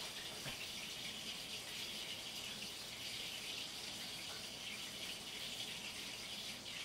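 A steady hiss, with a few faint knife taps on a cutting board.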